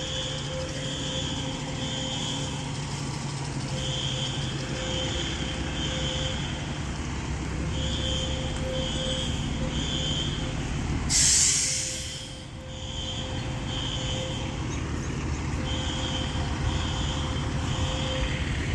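Building fire alarm sounding in the three-pulse evacuation pattern: three beeps, a pause, repeating about every four seconds. Under it a heavy engine idles with a low rumble. About eleven seconds in, a loud hiss of air-brake release cuts across for about a second.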